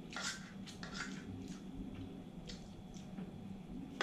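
Faint eating sounds at a table: a few soft, short scrapes and clicks of a spoon and fork on a plate, over a steady low room hum.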